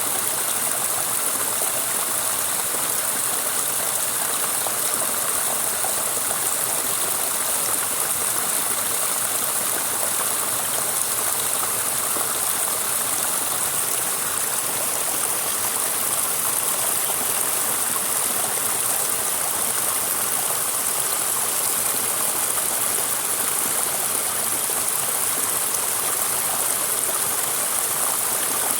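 Flowing stream water rushing steadily, an even hiss with no breaks or separate events.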